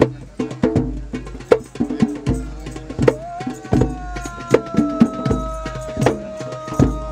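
Hand drums of a drum circle beating a fast, driving rhythm. About three seconds in, a long held note joins them, sliding up at first and then sinking slowly as it is held.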